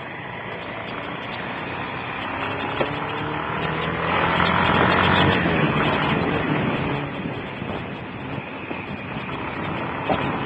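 Motorcycle engine running on a downhill ride, with a steady rush of wind and road noise, heard through a mobile phone's microphone. It swells to its loudest about four to six seconds in, where the engine note drops in pitch, then eases back.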